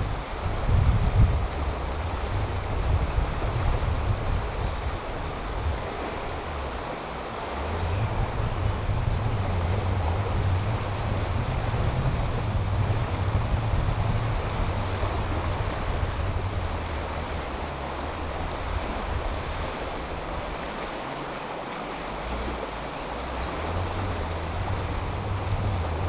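Wind buffeting the microphone in low, uneven gusts, easing off twice, over a steady high-pitched trill of insects and a soft wash of water at the shore.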